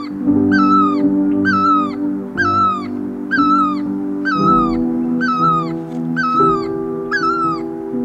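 Great barbet calling: a loud, rising-then-falling note, repeated about once a second eight times and stopping near the end, over background music of sustained chords.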